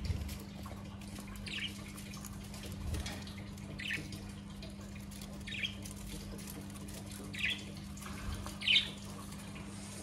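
Cockatiels giving short chirping calls, about five spaced a second or two apart, the last one loudest.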